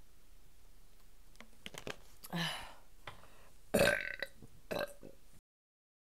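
A woman burping three times after chugging water. The middle burp is the loudest, and the sound cuts off abruptly near the end.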